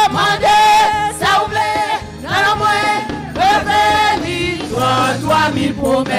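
Church worship singing: voices sing a gospel chorus together over instrumental backing, with long held notes.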